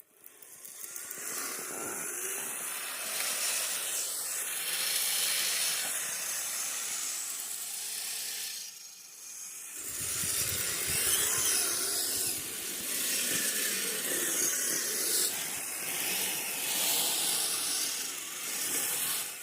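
Radio-controlled tracked crawlers, a Kyosho Midnight Blizzard and a Kyosho Trail King, driving through fresh snow: a steady hissing of drivetrain and plastic tracks churning the snow. It drops away briefly near the middle, then picks up again with more rumble.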